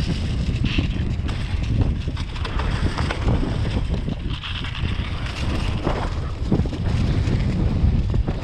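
Wind buffeting a GoPro microphone on a moving mountain bike, a steady low rumble, with the tyres crunching over a dirt trail strewn with dry leaves and the bike rattling over bumps in frequent short knocks.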